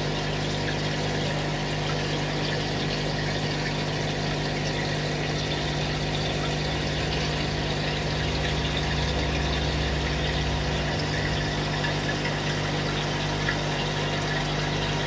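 Steady mechanical hum with a constant hiss, unchanging throughout, with a slightly heavier low rumble for a few seconds in the middle.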